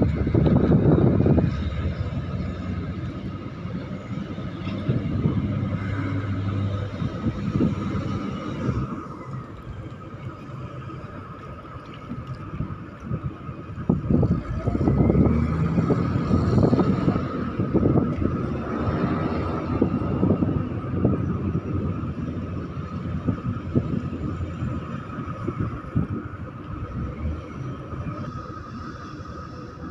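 Loaded container ship passing close by under way: a steady engine hum with a constant whine. Wind buffets the microphone in gusts, loudest near the start and again in the middle.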